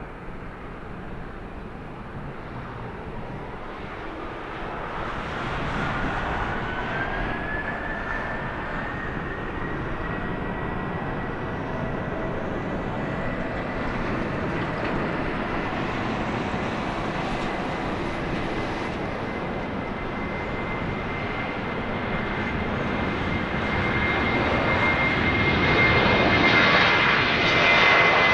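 Jet airliner's engines spooling up: a whine rises in pitch over several seconds, then holds steady over the engine noise, which grows louder and is loudest near the end.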